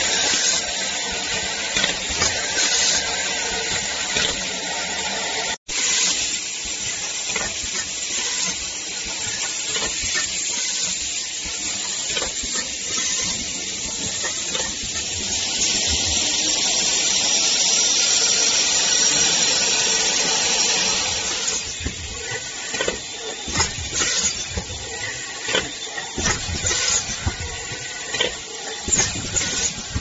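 Aerosol can filling and crimping machinery running: a steady hiss of compressed air that swells louder in the middle, then quick, irregular clattering knocks through the last third.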